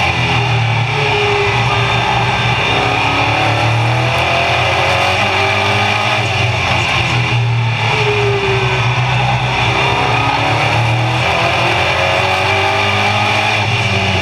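Stock car engine running hard at racing speed, heard from inside the cockpit, loud and unbroken. Its pitch dips and climbs again twice, once per pass through the turns.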